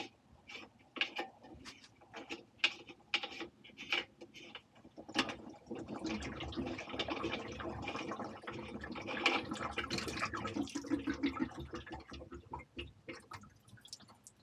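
Clicks and taps of a threaded hose fitting being worked loose by hand on a water pump's pressure tank. About five seconds in, leftover water starts running out of the loosened fitting and keeps flowing steadily for several seconds, then thins to scattered drips as the system drains for winter.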